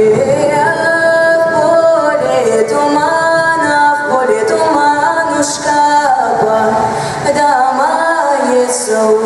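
A girl singing a pop ballad into a microphone over a recorded backing track, holding and sliding between long sung notes.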